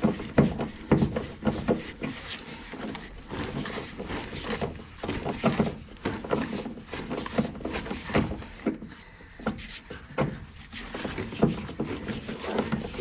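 A seized, rust-bound floor-pan screw being worked with a hand tool and driver bit, giving irregular creaks, scrapes and knocks as the bit bears on and turns the screw.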